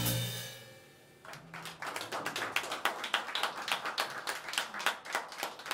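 A fusion band's final chord ringing out and fading away over about the first second. After a brief hush, a small audience starts applauding.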